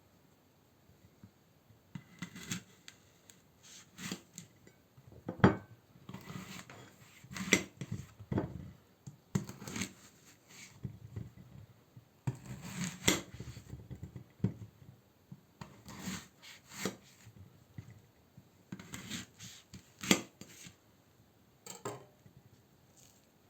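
Kitchen gear being handled: irregular knocks, clatters and scrapes, starting about two seconds in, with no steady motor running.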